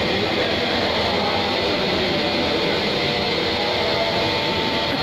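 Steady din inside a crowded livestock show tent: a constant machinery hum under a murmur of voices.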